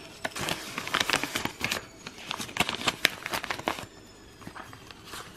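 Rustling and crinkling with quick small clicks as items are handled and pushed into a purse, dying down after about four seconds.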